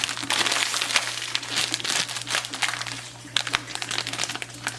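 Plastic zip-top bag crinkling and crackling as it is squeezed and pressed to push the air out around the slime inside.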